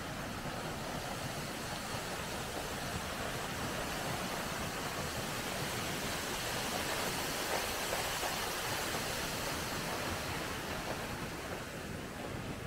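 Waterfall's steady rushing roar of falling water, swelling a little in the middle and easing near the end.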